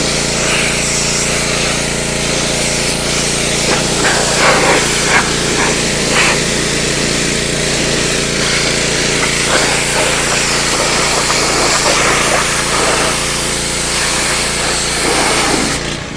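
Pressure washer running steadily, its engine droning under the hiss and splatter of the high-pressure water jet on the pond's walls. Near the end the spray cuts off and the engine keeps running.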